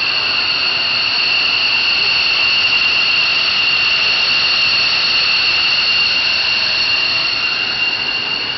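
Steady, loud, high-pitched whine of two constant tones over a rushing hiss, heard as a strange sound from the sky; at an airfield this is typical of a jet engine's turbine whine. It eases slightly near the end.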